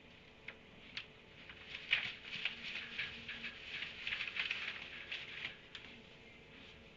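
Small animals squeaking and chattering, as in a squabble. A couple of single clicks come first, then a dense run of short, high squeaks for about four seconds before it dies away.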